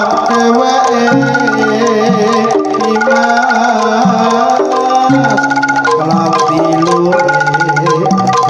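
Javanese jaranan music: tuned metal percussion plays a repeating melody over hand drums, loud through a large outdoor sound system.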